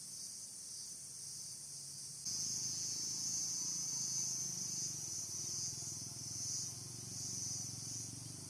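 Steady high-pitched insect chorus that gets louder about two seconds in, then swells and eases in slow pulses, with a faint low rumble underneath.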